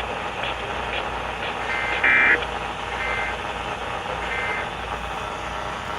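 Emergency Alert System end-of-message tones: three short two-pitch data bursts about a second apart, the first the loudest, marking the end of the alert. They sit over a steady background hiss.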